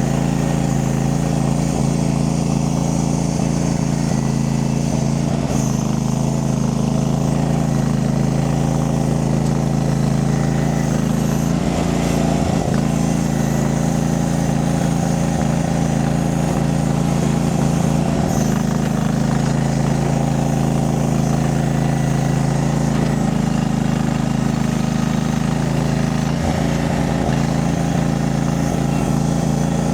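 Engine of a tracked Chinese mini skid steer running steadily while it works, its pitch dipping briefly a few times.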